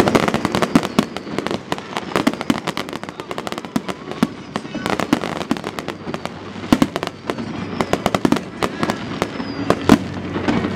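Aerial fireworks display: a dense, continuous run of shell bursts and crackling, with a few louder bangs standing out past the middle and near the end.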